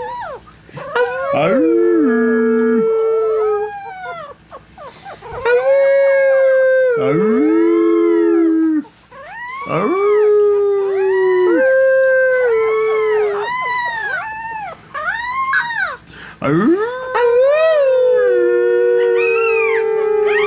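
People howling in long, held low notes while a three-week-old Chihuahua puppy howls along in short, high, rising-and-falling yowls. The howls come in a string of phrases a few seconds long with short breaks between them.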